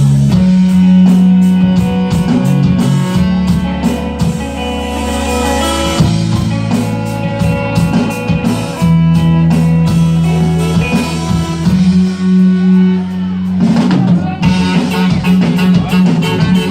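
Rock band playing live: electric guitar over a drum kit.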